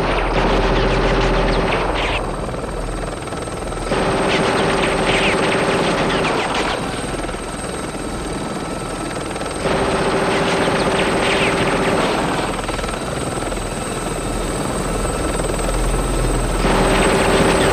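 Aérospatiale Gazelle helicopter running steadily, with a louder burst of two to three seconds about every six seconds, four in all, each carrying a steady hum and a crackle over the top.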